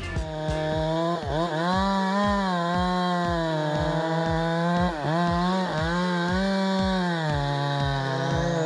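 Chainsaw engine running at full throttle while cutting wood, its pitch sagging as the chain bites and picking back up, most clearly about a second in and again about five seconds in.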